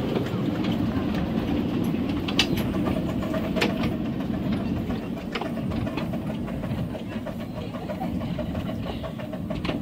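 7¼ inch gauge miniature railway train running along its track, with a steady rumble and now and then a sharp click of the wheels over the rail joints.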